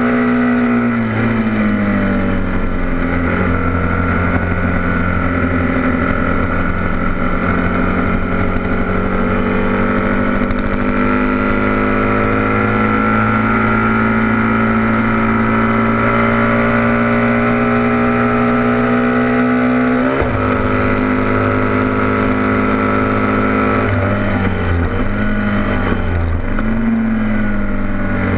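Vintage production racing motorcycle's engine heard from on board at high revs: the pitch drops about a second in, climbs slowly for a long stretch, drops sharply about two-thirds of the way through, then dips and rises twice more near the end as the revs change.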